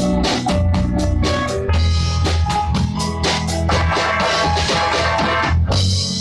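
Rock band playing an instrumental passage, with a drum kit keeping a steady beat over bass and sustained pitched chords.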